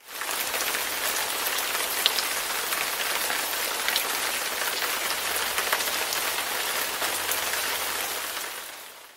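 Steady rain falling, an even hiss with scattered sharper drop ticks. It fades in at the start and fades away over the last second or so.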